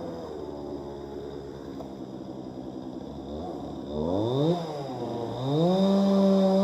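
Two-stroke chainsaw engine running at a low idle, then revved up twice about four seconds in and opened up again to hold full throttle near the end.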